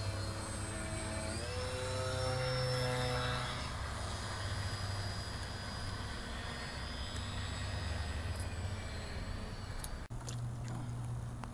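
Radio-controlled model airplane flying, its engine note rising in pitch about a second and a half in and then running steady with a high whine. The sound changes abruptly near the end.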